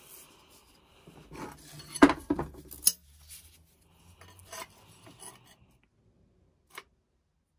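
Clinks and knocks of a grinding wheel and a metal square being handled on a workbench. The sharpest clacks come about two seconds in, softer taps follow, and there is one more click near the end.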